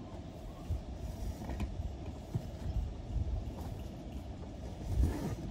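Wind rumbling on the microphone in uneven gusts, with a few light knocks as camping gear is handled at the back of a car. The gusts swell louder near the end.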